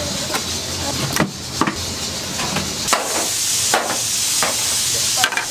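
Restaurant kitchen noise: a steady hiss, loudest between about three and four and a half seconds in, with about seven scattered knocks and clatters of dishes and utensils.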